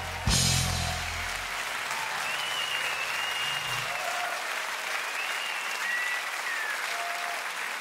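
A live rock band ends a song on a final hit that rings out and fades over the first second or two. Audience applause and cheering with a few whistles follow.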